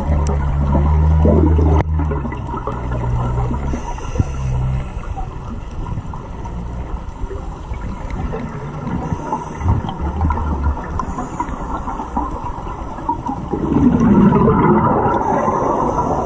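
Water rushing steadily, with a low rumble in the first few seconds and a louder surge near the end.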